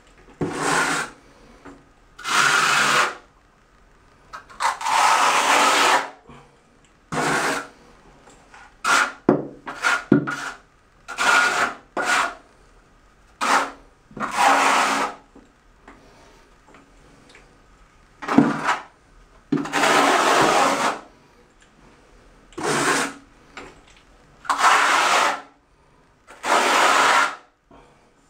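Quarter-inch notched steel trowel scraping and combing thinset tile cement across a shower floor, in repeated strokes about every one to two seconds.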